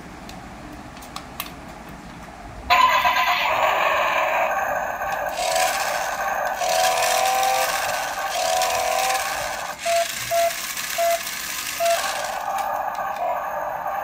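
Electronic sound effects from a toy RC stunt car's small built-in speaker. They switch on suddenly about three seconds in and keep playing, with short tones and a run of four short beeps near the end.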